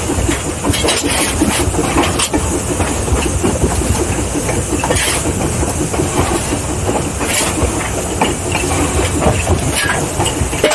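Mason Bogie 0-6-4T steam tank locomotive running under way, heard from inside its cab: fast, even exhaust chuffs with steam hiss, and sharp clicks every second or two.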